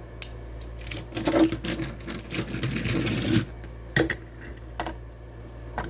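Hard plastic clicking and rattling as a die-cast toy car is handled and fitted onto a small plastic display turntable. There is a dense rattle for a couple of seconds, then a few sharp separate clicks near the end.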